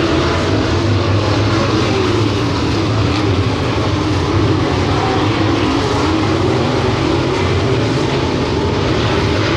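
A field of dirt late model race cars' V8 engines running hard around a dirt oval, a loud, steady drone with no let-up.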